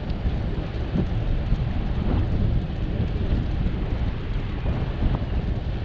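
Wind buffeting the microphone of a camera on a moving bicycle: a steady, loud low rumble with uneven swells and a few faint ticks from the road.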